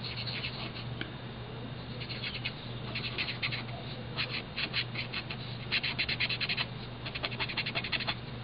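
Marker tip scratching across cardstock in quick back-and-forth colouring strokes, in runs of rapid scratches with short pauses between them.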